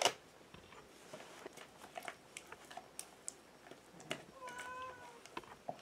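A wooden stick stirring a thick flour mixture in an aluminium pot, giving faint scattered clicks and scrapes. A cat meows once briefly about four seconds in.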